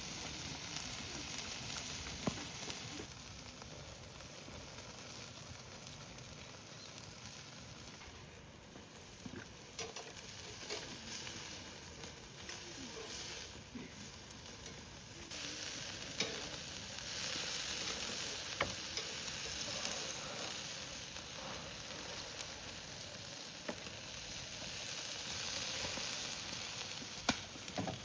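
Food frying with a steady sizzle, with scattered sharp clicks and short scrapes through it.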